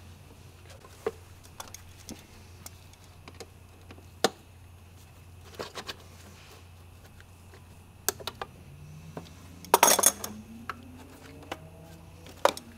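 Light metallic clicks and clinks of hand tools and parts being handled under a car's hood, with a louder clattering burst about ten seconds in and another near the end.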